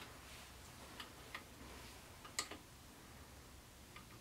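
Hand ratchet snugging down the small spanner-lock bolts on a differential's carrier caps: a few faint, scattered clicks, the loudest a little past the middle.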